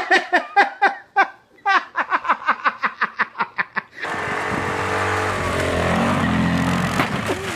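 A woman laughing hard in a long string of rapid bursts, about five a second. About four seconds in it gives way to a quad ATV's engine running steadily as the ATV ploughs through deep snow.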